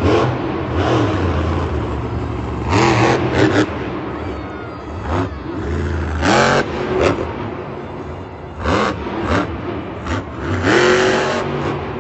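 A monster truck's engine revving in repeated short bursts, the pitch rising with each stab of throttle, over a steady lower running note.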